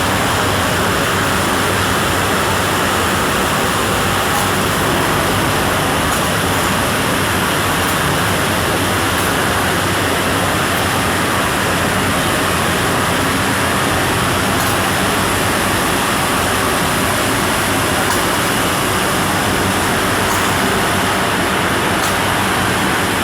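Wood-processing machinery running with a steady, even noise and a faint low hum, without change.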